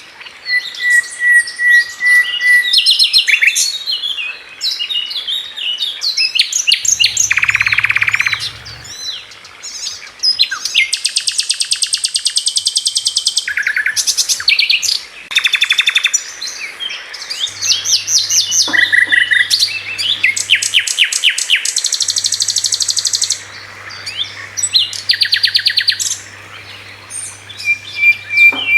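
Songbird singing at length: fast trills, rapid runs of repeated high notes and short whistled chirps, with brief pauses between phrases.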